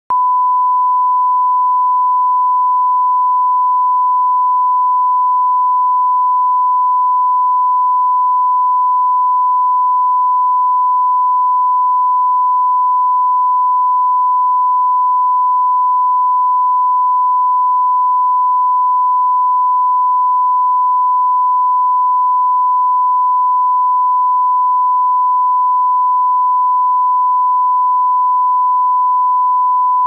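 Steady 1 kHz reference test tone, a single pure unwavering pitch: the line-up tone that goes with broadcast colour bars. It cuts off suddenly at the end.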